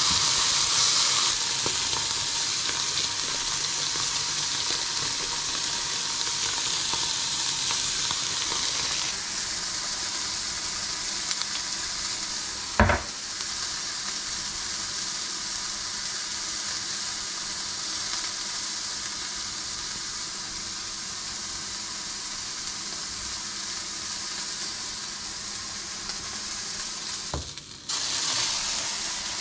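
Beef burger patty sizzling in a frying pan, a steady frying hiss that softens gradually. A single sharp knock about 13 seconds in.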